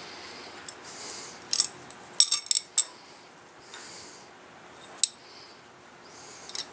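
Small steel washers and bolts clinking together as they are fitted onto an ignition-coil bracket bolt as spacers: a few sharp metallic clinks, with a cluster of them about two seconds in and one more near five seconds. Soft breathy hiss comes and goes between them.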